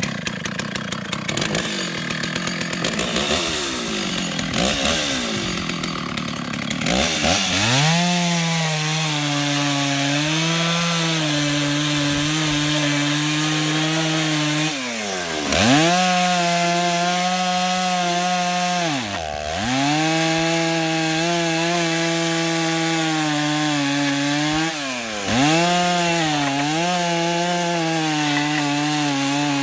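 Gas chainsaw running at high revs and cutting, with a rough, noisy first few seconds. After that comes a steady engine note that drops sharply and climbs back three times.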